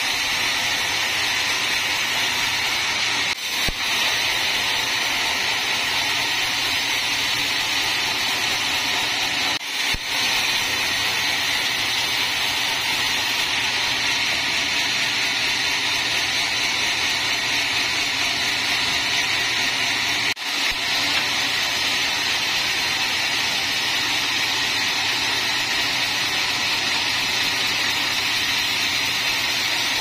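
Sawmill band saw cutting lengthwise through a teak log, a steady, unbroken noise that dips briefly three times.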